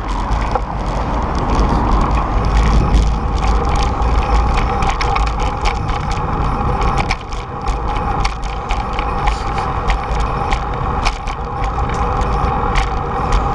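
Bicycle riding noise: wind rumbling on a bike-mounted camera's microphone, with frequent rattles and clicks from the bike and mount over bumps in the pavement.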